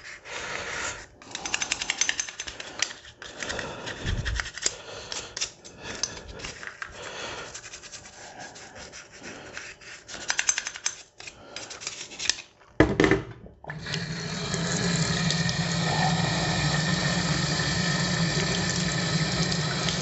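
Toothbrush scrubbing a Suzuki GSF650 Bandit rear brake caliper in a stainless steel sink, in irregular scratchy strokes. A knock comes about 13 seconds in, then the tap runs steadily into the sink.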